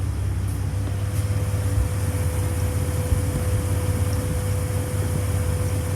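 Jeep TJ engine idling under the hood, with a steady whine over the low engine note: the sound of a bad serpentine belt tensioner.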